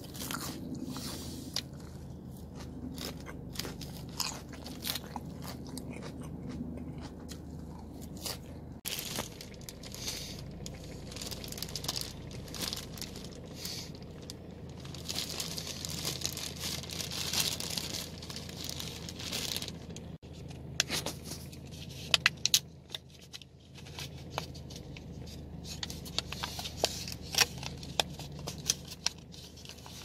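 Close-miked chewing and crunching of food, with scattered sharp clicks and crackles; the loudest clicks come about two-thirds of the way in.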